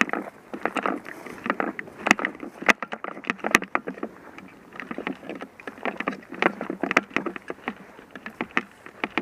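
Irregular rustling and crunching, like movement through dry brush, broken by a few sharp clicks.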